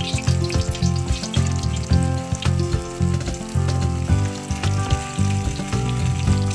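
Squash lumpia (spring rolls) frying in hot oil in a metal pan: a steady crackling sizzle as more rolls are laid into the oil for their first fry. Background music with a regular beat plays throughout.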